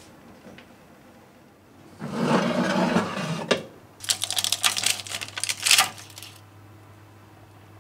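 A brief scraping rush about two seconds in. From about four seconds, a dense run of fine crisp crackles as fingers press and lift a baked marshmallow meringue cookie off its parchment-lined tray.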